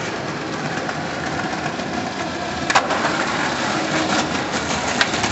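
Skateboard wheels rolling on a concrete sidewalk, a steady rumble, with a sharp clack about two and a half seconds in and a few more near the end.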